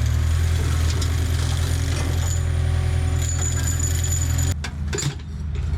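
Jackhammer breaking up old concrete, hammering steadily, then stopping about four and a half seconds in.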